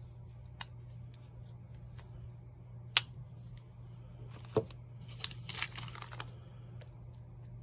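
Sharp clicks and a knock from handling a metal folding knife, the loudest click about three seconds in. Then a clear plastic bag crinkles for about a second as the knife is worked into it.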